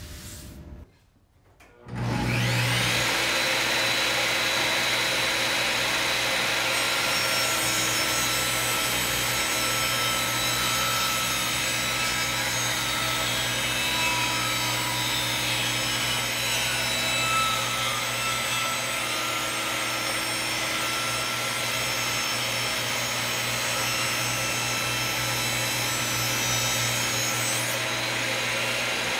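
Benchtop table saw starting about two seconds in and running steadily while a wooden board is ripped along the fence.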